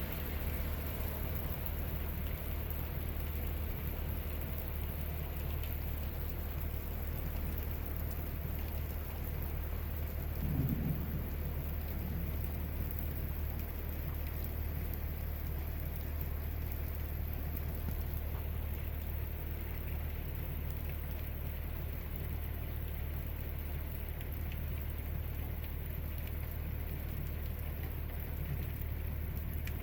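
Heavy thunderstorm rain falling steadily, with one short low rumble of thunder about ten seconds in.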